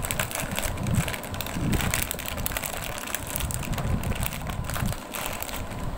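Crinkly plastic snack packet being handled and pulled open, a dense run of irregular crackles and rustles.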